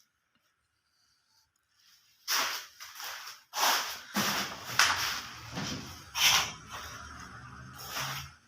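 A series of short rasping strokes, roughly one a second, starting about two seconds in after near silence, with a low steady hum underneath from about four seconds in: a hand tool working wood.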